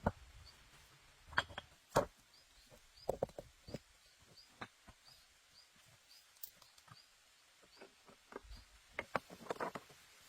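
Irregular knocks and clicks of branches and rocks being handled and set in place, with a few louder knocks near the start and a quick run of them near the end. Faint high chirps repeat about twice a second behind them.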